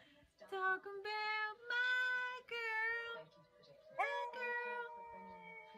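Husky vocalizing in a run of drawn-out, howl-like calls. One call wavers in pitch about two and a half seconds in, and a long held call starts about four seconds in.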